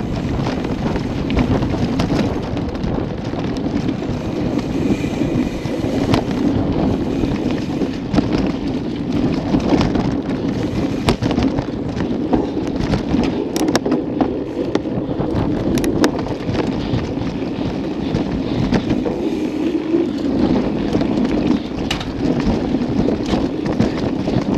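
Mountain bike rolling over a rough dirt trail: a steady rumble of tyres and wind on the microphone, broken by frequent knocks and rattles from bumps.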